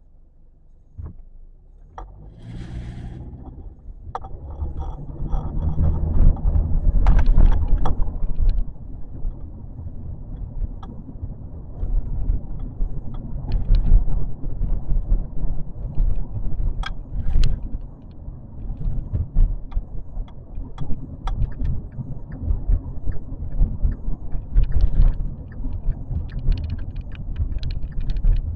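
Car pulling away from a stop and driving: a low engine and road rumble heard from inside the cabin, building over the first few seconds, with scattered knocks and rattles.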